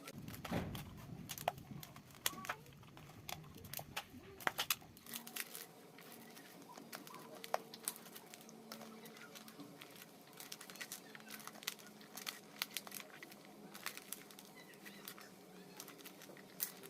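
Hands mixing minced mutton momo filling with chopped onion and spices in a bowl: soft, irregular squishing with scattered small clicks and crinkles, busiest in the first few seconds, over a faint steady hum.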